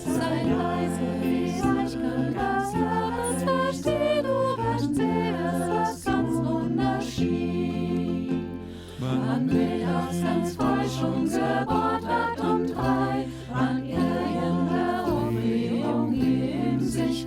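A choir singing a Christmas song in several-part harmony, with chords changing every second or so over sustained low notes.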